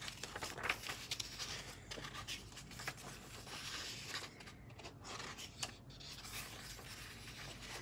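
Pages of a paperback colouring book being flipped and handled: faint paper rustling with a few light flicks as the pages turn.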